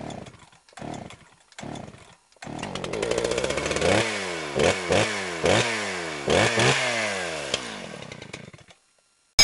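A small engine: a few short bursts, then it runs and is blipped repeatedly, its pitch dropping after each rev, before fading out. A short sharp hit, the loudest sound, comes at the very end.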